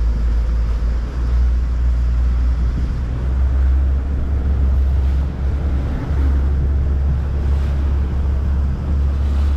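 Motorboat under way: a steady low rumble of engine and water rushing past the hull, with wind on the microphone.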